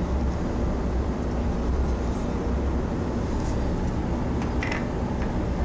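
Steady low rumbling hum of background machinery, with a few faint light clicks about three and a half to five seconds in.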